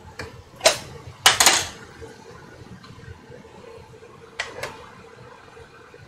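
Kitchen clatter while a pot is being seasoned: a few sharp knocks of utensils or containers being handled and set down. One comes about a second in, a louder cluster follows just after, and two more come near the end, over a low steady hum.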